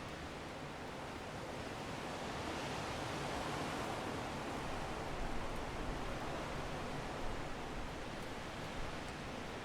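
Strong wind blowing in gusts, rising over the first few seconds to a peak midway and slowly easing off, with a few brief rumbling buffets in the middle.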